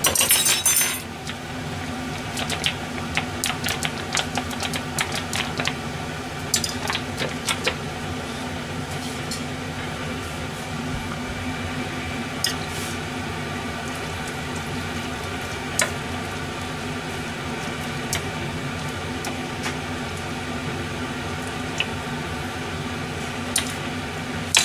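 Miso being stirred into a pot of simmering miso soup with a metal spoon, chopsticks and a ladle: scattered light clinks against the aluminium saucepan, most of them in the first eight seconds and only a few after, over a steady simmering and stove hum.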